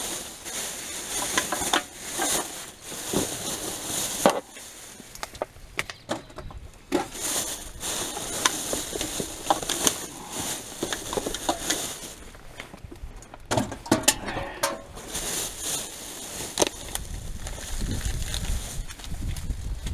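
Rummaging through rubbish in a dumpster: crinkling plastic bags and an irregular run of knocks and clatters as items are shifted and sorted.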